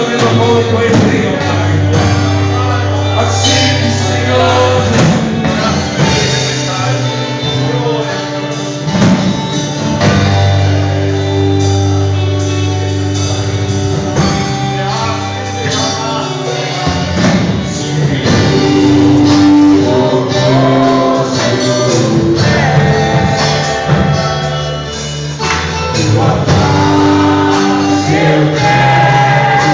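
Contemporary worship band music: drums keeping a steady beat under held bass notes, with singing over it.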